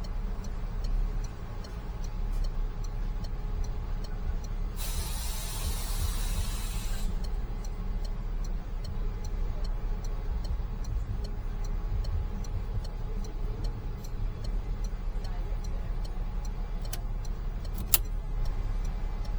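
Peugeot Partner van's engine running steadily, with a light regular ticking about two or three times a second. A two-second burst of hiss comes about five seconds in, and two sharp clicks near the end.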